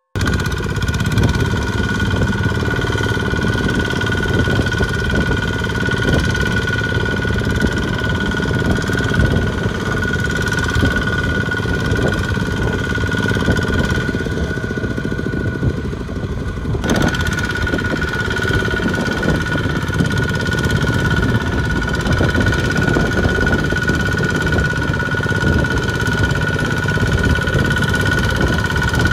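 Single-cylinder diesel engine of a two-wheel walking tractor running steadily under load as it pulls a trailer through deep mud. A steady high whine runs over the engine's low chug.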